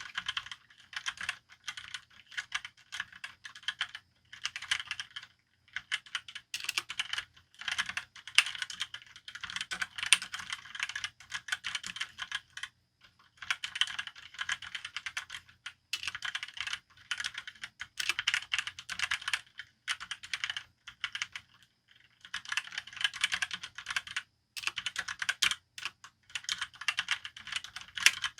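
Typing on a Motospeed GK82 tenkeyless mechanical keyboard with red linear switches: runs of rapid keystrokes broken by brief pauses.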